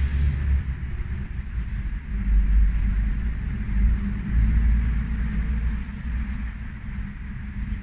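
Motorcycle engine running with a low, uneven rumble.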